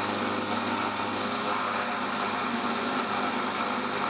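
Jet 830 vertical milling machine running under CNC control, its end mill cutting an aluminium plate: a steady machine sound with several held tones over a hiss.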